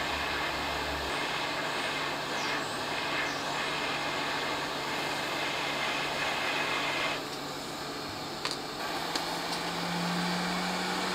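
Hot-air rework station blowing steadily on a surface-mount IC to melt its solder so it can be lifted off the board. The air hiss dips for a moment about seven seconds in, with a couple of light clicks.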